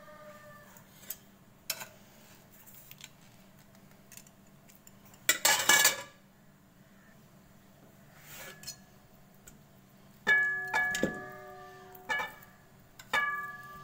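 Slotted metal spatula scraping and knocking against an empty aluminium karahi and a clay bowl while lumps of solid ghee are scooped in. A loud scrape comes about halfway through, and near the end the spatula strikes the karahi three times, each clang ringing on.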